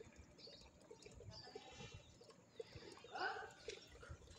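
Faint outdoor ambience with scattered short bird calls, one louder call about three seconds in.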